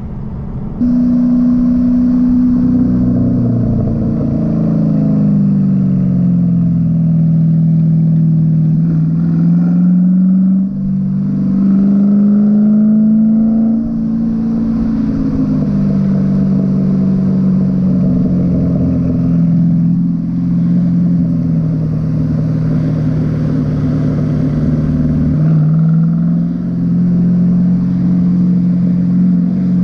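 2012 Ford Mustang Boss 302's 5.0-litre V8 running through a modified exhaust under load on a winding road, its pitch rising and falling with throttle and revs. It gets louder just under a second in and dips briefly about ten seconds in.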